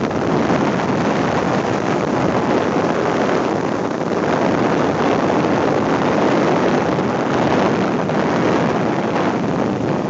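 Helicopter in flight heard from on board: a loud, steady rush of engine and rotor noise mixed with wind buffeting the microphone.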